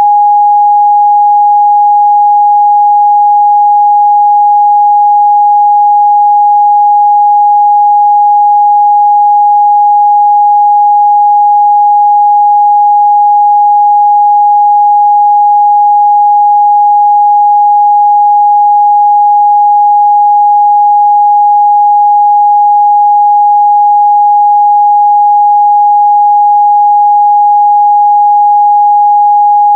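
Pure 826 Hz sine-wave test tone, held steady and unchanging, loud, with no other sound.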